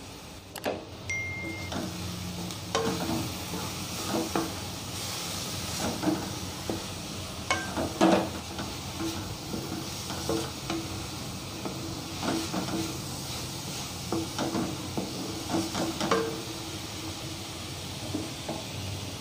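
A spatula stirring shredded cabbage in a metal kadai, with repeated scrapes and knocks against the pan over a steady sizzle of frying.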